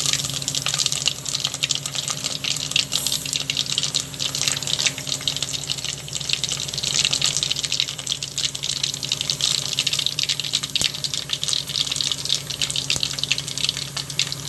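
Tempering spices sizzling and crackling in hot oil in a clay pot: a steady crackle of fine pops over a hiss, with a faint steady low hum underneath.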